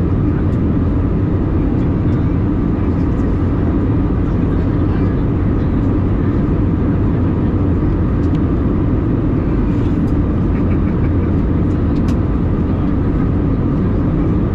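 Steady cabin noise inside an Airbus A320 in flight: loud, even engine and airflow noise, heaviest in the low range, with a couple of faint ticks.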